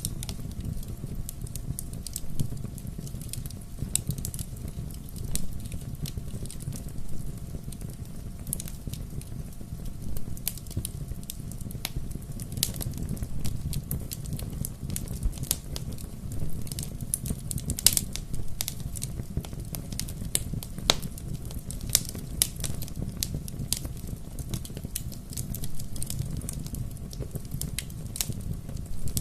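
Wood fire crackling, with irregular sharp snaps and a few louder pops over a steady low rumble of burning.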